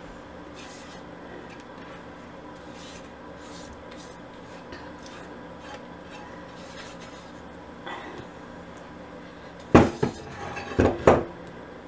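Silicone spatula scraping the last fudge out of a nonstick saucepan in soft, faint strokes, then a few sharp clunks of the saucepan near the end.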